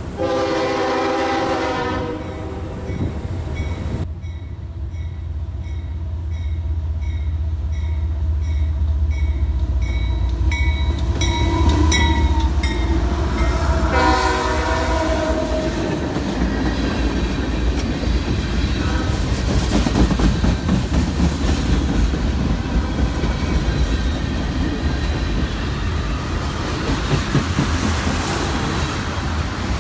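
CSX diesel freight locomotive passing close by: the air horn sounds at the start and again about halfway through, and the bell rings steadily between the blasts over a heavy engine rumble. After that come the rolling noise and clatter of the freight cars on the rails.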